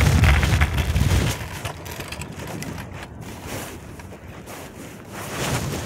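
Phone microphone muffled inside a pocket, with cloth rubbing over it: a rumbling rustle that is loudest for about the first second and a half, then quieter, then rises again near the end.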